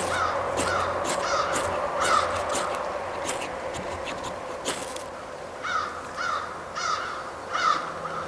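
Crows cawing in runs of short harsh calls, about two a second, a run at the start and another in the last few seconds. Several short scraping strokes come in the first half.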